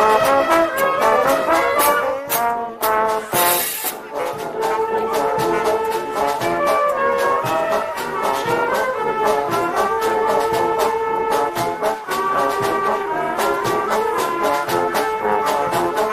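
Brass band playing a dobrado, a Brazilian street march: trombones and trumpets carry held melody notes over a steady march beat of drum strokes, with a brief cymbal-like crash a few seconds in.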